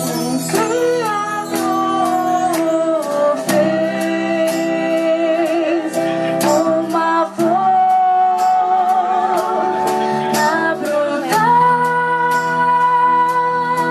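A woman sings a slow gospel song live over a small band of guitars and hand drums. She holds long notes with vibrato over steady chords and regular drum strikes.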